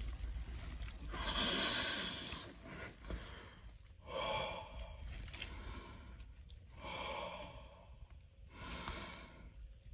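A man breathing slowly and deeply while immersed to the neck in an ice bath. There are about four long, noisy breaths through the open mouth, and the first, about a second in, is the loudest.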